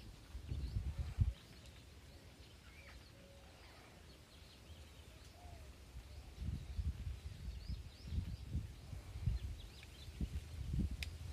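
Wind gusting on the microphone in low rumbles, with faint bird chirps in the background.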